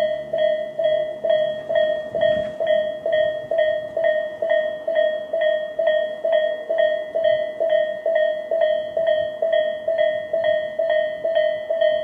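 Japanese level-crossing electronic warning bell of the Tobu type (the railway's 'sound A'), ringing from both sides of the crossing in a steady, even ding-ding a little more than twice a second.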